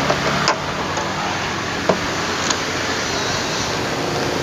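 Key turning in the lock and the latch of a 2003 Honda CR-V's side-hinged rear door clicking as the door is unlatched and swung open: a few short, sharp clicks, the loudest about two seconds in, over a steady vehicle hum.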